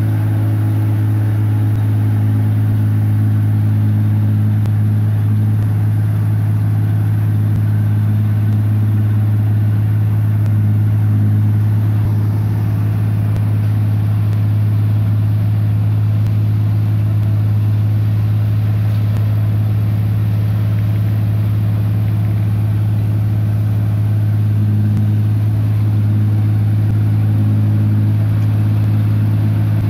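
New Holland Clayson 1545 combine harvester's engine running steadily as the tracked machine drives, a loud, even, low drone throughout.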